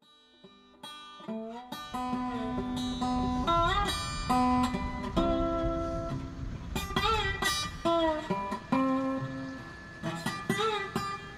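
Acoustic guitar music, plucked notes with several that slide or bend in pitch, fading in over the first couple of seconds.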